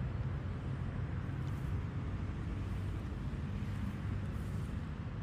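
Steady low rumbling background noise with a faint hiss above it and no distinct event.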